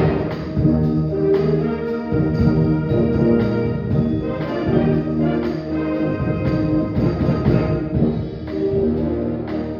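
Live high school concert band playing a Christmas medley: brass holds chords over regular percussion strokes.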